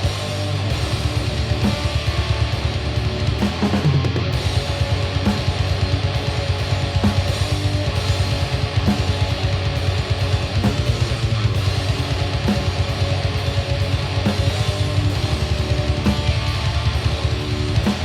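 Background rock music led by electric guitar, with a steady beat.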